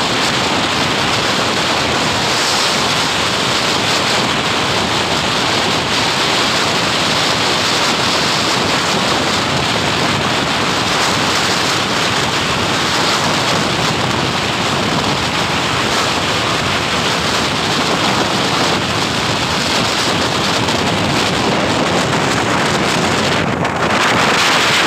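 Steady rush of wind buffeting the microphone from a truck moving at speed, with road noise beneath; it gets louder near the end.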